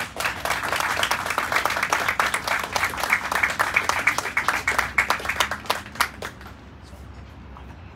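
A small audience applauding, with many separate claps, dying away about six seconds in.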